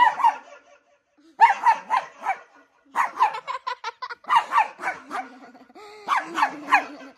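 High, dog-like yipping barks in quick runs of three to six, with short gaps between the runs.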